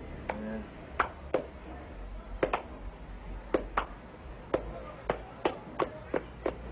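Sharp hand claps: a few spaced pairs, then a quicker, even run of single claps at about three a second.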